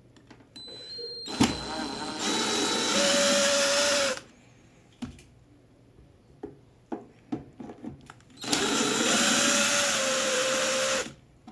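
A handheld power drill runs in two bursts of about two seconds each, with a steady whine. Scattered clicks and knocks sound between the bursts.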